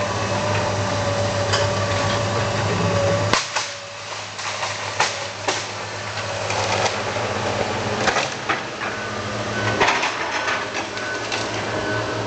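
A machine hum with a steady tone that cuts off suddenly about three seconds in, followed by irregular knocks and clicks.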